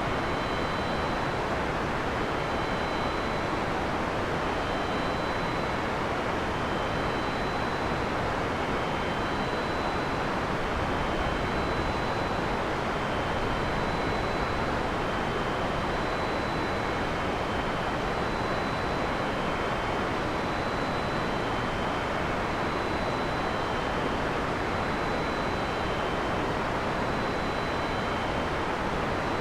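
Heavy rain falling steadily in a forest, an even unbroken hiss. Faint short high-pitched notes recur about every two seconds over the rain.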